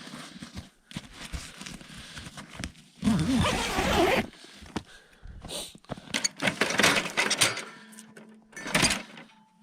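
Irregular rustling, knocks and thuds, with a louder rushing stretch about three seconds in and a busy run of clicks and knocks in the second half.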